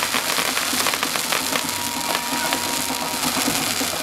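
Ground fireworks fountains spraying sparks: a steady, dense crackling hiss thick with tiny pops.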